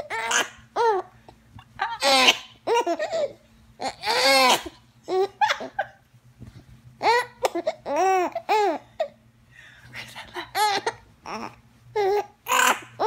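A young baby laughing: clusters of short, high-pitched laughs, each laugh rising and falling in pitch, coming every second or two with brief pauses between.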